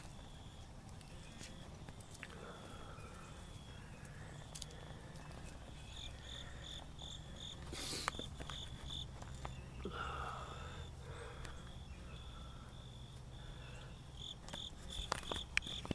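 Faint, high-pitched insect chirping, pulsing a few times a second in stretches, over a low steady hum.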